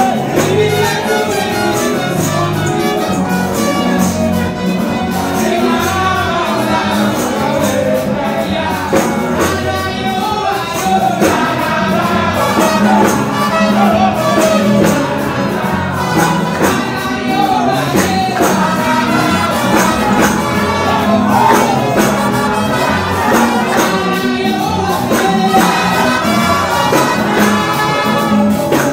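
Live gospel music: voices singing into microphones over a church band with bass guitar and a steady beat.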